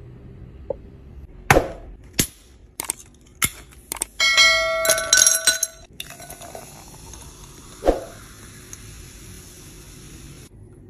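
Ice cubes clinking into a drinking glass: several sharp knocks, then a couple of seconds of ringing clatter. Cola is then poured over the ice and fizzes with a steady hiss.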